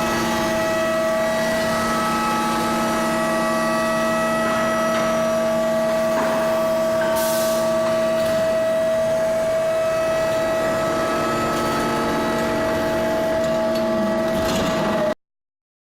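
Induction billet heating furnace running, a loud, steady electrical whine made of several unchanging tones, with a brief hiss about seven seconds in. It cuts off abruptly near the end.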